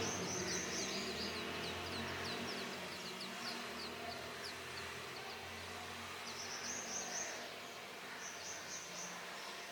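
Brown rock chat nestlings begging: thin, high chirps repeated rapidly, several a second, for the first few seconds, then in short bursts about seven and eight and a half seconds in.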